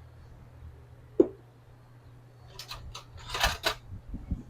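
Cup and dishes being handled on a counter: one sharp knock about a second in, then a short run of clinks and rattling, over a low steady hum.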